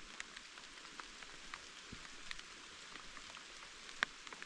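Light rain falling: scattered drops ticking over a faint, even hiss, with one sharper tap about four seconds in.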